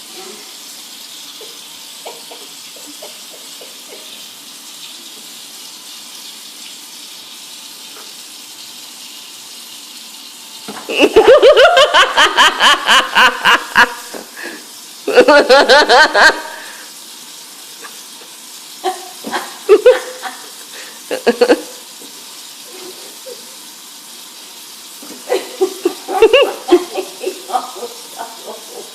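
A steady hiss of running water, broken four times by a person's bursts of laughter, the longest about eleven seconds in.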